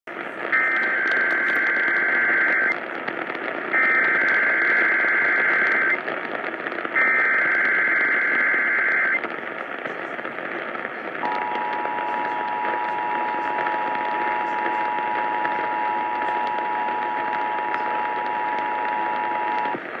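Emergency Alert System Required Monthly Test received on AM radio: three digital data bursts of the SAME header, about two seconds each, then the steady two-tone EAS attention signal held for about eight seconds, all over constant AM static hiss.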